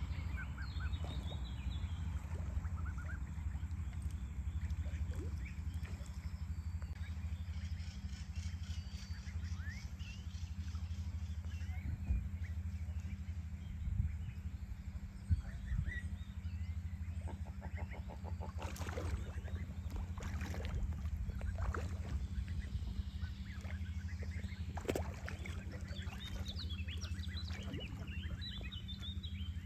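Ducks calling on a pond, short calls and chirps with a rapid stuttering call about two thirds of the way in, over a steady low rumble. There are a few sharp knocks near the middle.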